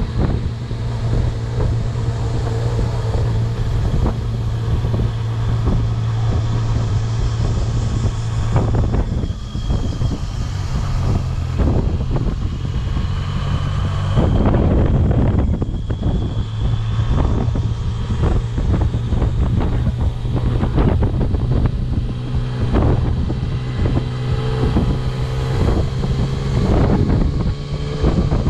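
Yamaha Tracer 900's three-cylinder engine running at low road speed, with wind buffeting the microphone. The engine note loosens for a few seconds about nine seconds in, then climbs in pitch near the end as the bike accelerates.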